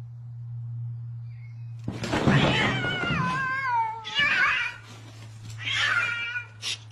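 Domestic cats yowling in a fight: a long, wavering yowl that falls in pitch starts about two seconds in, followed by several shorter yowls, over a steady low hum.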